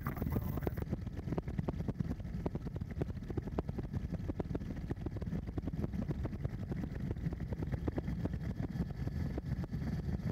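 Helicopter in flight, heard from inside the cabin: a steady low engine drone with fast rotor beating.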